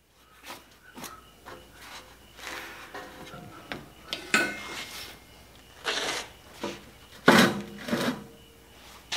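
A MIG welding gun and gloved hands knocking and scraping against a steel tube frame: a run of irregular clanks and scrapes, some ringing briefly, the loudest a little past seven seconds in.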